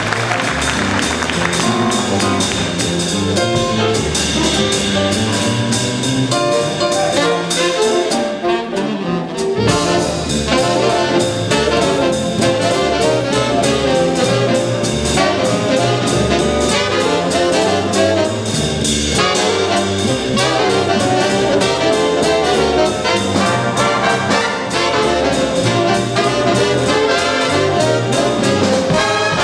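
Jazz big band playing a swing chart live, with saxophones, trumpets and trombones over drums, bass and piano. The cymbals thin out briefly about eight seconds in, then the full band carries on.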